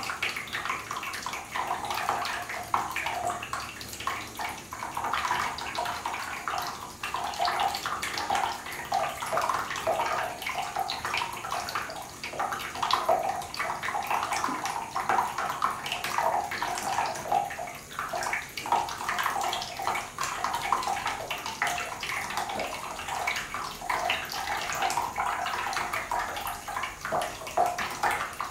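A thin stream of water runs from a bathtub spout and splashes into shallow water in the tub, with a steady, uneven spatter.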